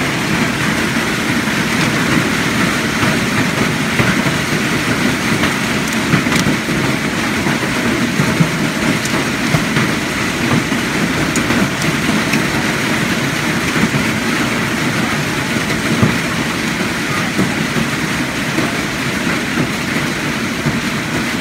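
Hailstorm: hail and rain pelting down in a loud, steady, dense clatter, with scattered sharper hits.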